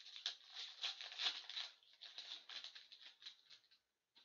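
Foil hockey card pack wrapper being torn open and crinkled by hand: a continuous crackling rustle that stops a little before the end, followed by a faint tick.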